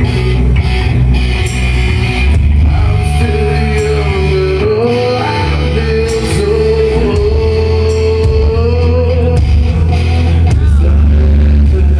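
Live rock band playing: electric guitars, bass and drums, with a vocalist singing into a microphone, holding a long note that slides upward partway through.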